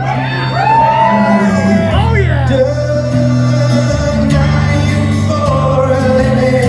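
Live rock band playing with guitars and bass. A voice, or voices, swoops up and down in wordless wails for the first couple of seconds, then one long note is held.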